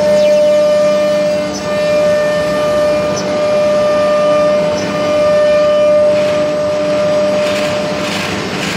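S4 ATC CNC router's spindle running with a steady high-pitched whine while its bit cuts through a wood panel, over a hiss of cutting noise. The whine fades about eight seconds in, and rougher pulsing cutting noise comes in near the end.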